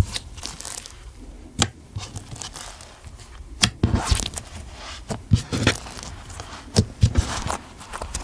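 Slime being squeezed and stretched by hand, giving irregular sticky clicks, pops and crackles.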